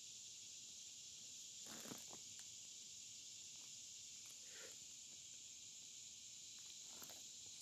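Faint steady high-pitched hiss, with soft rustles of a hand handling a mushroom among the leaf litter about two seconds in, again around four and a half seconds, and near the end.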